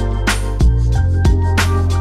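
Background music with a steady beat: drum hits about three times a second over held bass notes.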